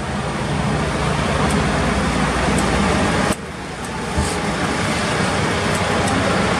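Steady running of heavy vehicles, with engine hum and traffic noise. The sound drops suddenly about halfway through and then builds back up.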